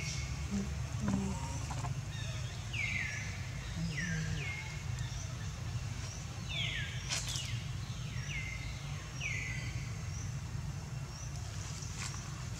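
A bird calling again and again, each call a quick note sliding down in pitch, mostly in pairs, over a steady low rumble. A single sharp click about seven seconds in.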